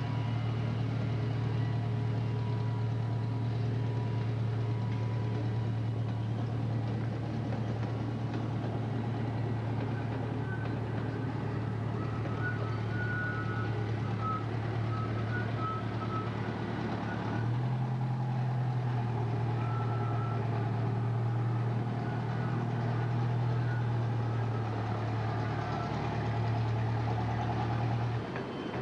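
Engine of the park's ride-on train running with a steady low hum throughout. Its note shifts about two-thirds of the way in.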